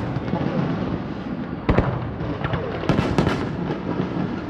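Aerial fireworks bursting: one sharp bang about a second and a half in, then a quick cluster of several bangs around three seconds in, over a continuous wash of noise.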